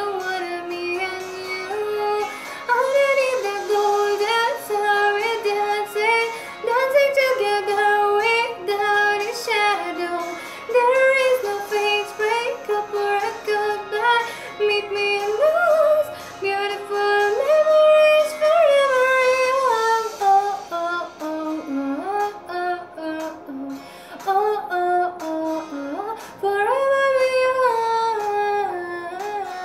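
A young woman singing a slow melody, with long held notes and sliding changes of pitch.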